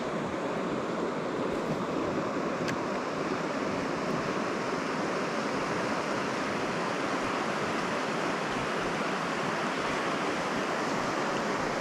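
Flowing river water, a steady even rush with no change.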